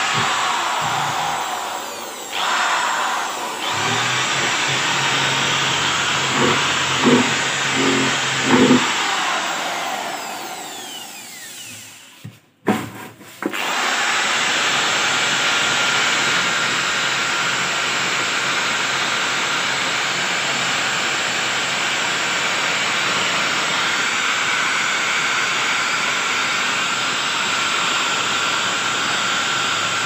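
Electric drill spinning a wire-wheel brush against the rusty sheet-metal of a refrigerator cabinet, a steady grinding run. A little past ten seconds in it winds down and cuts out, then starts again about a second later and runs steadily on.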